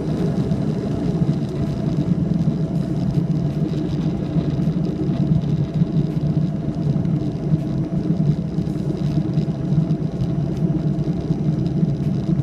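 Airliner cabin noise in flight: the steady drone of the jet engines and airflow heard from inside the cabin.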